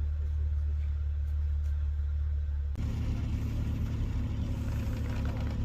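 Off-road vehicle engine running with a steady low hum. About three seconds in, the sound changes abruptly to a rougher, broader rumble.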